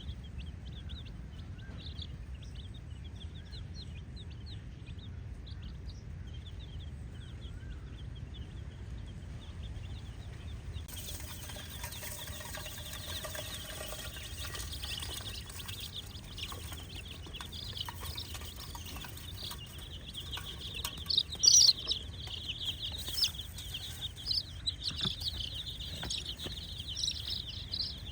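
A flock of baby chicks peeping, a dense chorus of short, high chirps over a steady low rumble. It grows louder about a third of the way in, with a few sharp, loud peeps about three quarters of the way through.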